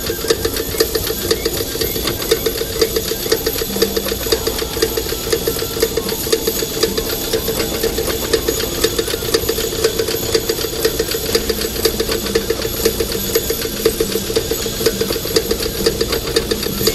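Fast, steady machine-like clatter over a droning hum, with no pause or change.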